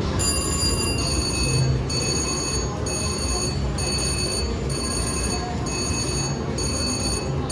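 VGT Lucky Ducky Vegas Wilds slot machine playing its repeating electronic reel-spin chime, a short pattern of high tones about once a second, while the mechanical reels spin. Casino background din underneath.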